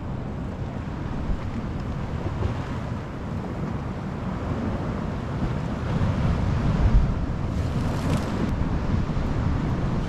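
Wind buffeting the microphone over the rush of sea surf on the shore. A steady noise that grows a little louder about six seconds in.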